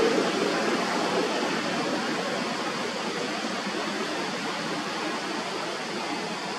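A steady rushing noise with no distinct events, slightly louder in the first second.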